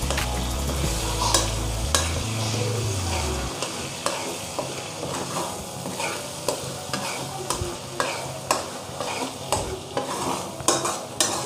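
Eggs frying and sizzling in oil in a nonstick pan while a spatula scrambles them, scraping and tapping against the pan in repeated strokes that come faster near the end.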